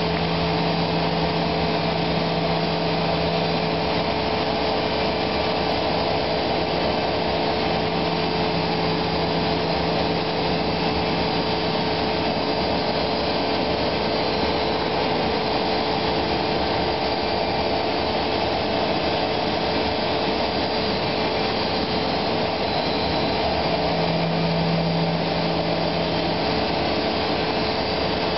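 A MultiCam 3000 Series CNC router milling a block of polyurethane foam: the spindle and cutter run with a steady whine over a constant rushing noise.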